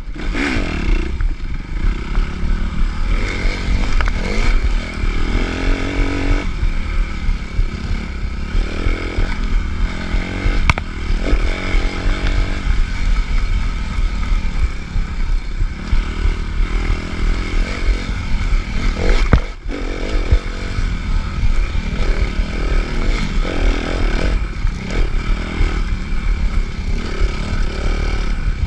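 Suzuki RM-Z250 motocross bike's single-cylinder four-stroke engine revving up and down, on and off the throttle, over a rough offroad course, with knocks and rattles from the bike. The engine briefly drops off about two-thirds through before picking up again.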